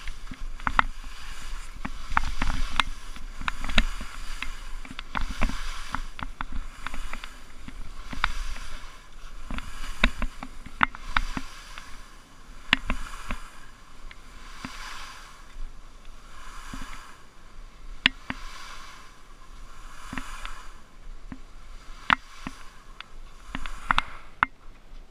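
Skis sliding and scraping over soft spring snow that has not frozen overnight, in repeated turns, with a swell of noise every second or two. Many sharp clicks and knocks come through the run.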